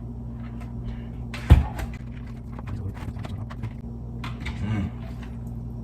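Kitchen handling sounds: a single sharp knock about a second and a half in, with light clicks and knocks around it, over a steady electrical hum.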